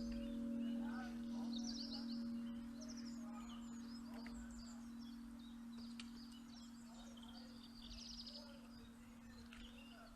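Church bell's lingering hum slowly fading away, with small birds chirping and singing over it.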